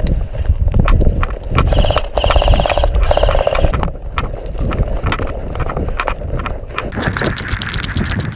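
Running footsteps through dry grass with gear rattling and knocking, heard close on a body-worn camera with heavy wind and handling rumble. A fast, buzzing rattle breaks in for about two seconds, starting a couple of seconds in.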